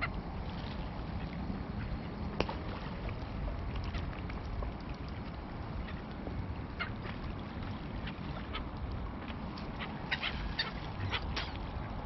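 Ducks quacking in short, scattered calls over the steady low wash of river water at the shoreline, several calls close together near the end.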